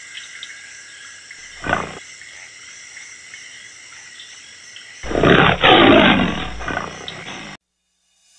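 Lion roaring: one loud, rough roar about five seconds in, lasting some two and a half seconds and cutting off suddenly, after a brief, fainter sound about a second and a half in, over a faint steady hiss.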